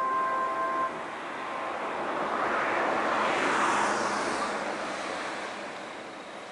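The last note of the disaster-prevention radio's outdoor loudspeaker chime stops within the first second. Then a swell of road noise rises, peaks about halfway through and fades away, as a vehicle passes by.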